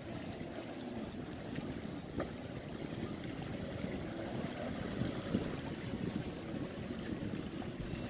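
Distant jet ski engine droning steadily as it speeds across the water, over a low rush of wind.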